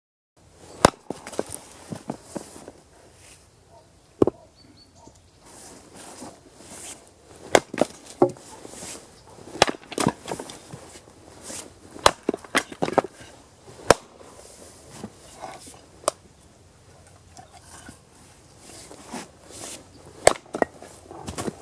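Axe splitting firewood rounds on a chopping block: a string of sharp cracking knocks, a second or two apart, with lighter knocks and rustling of wood pieces in between.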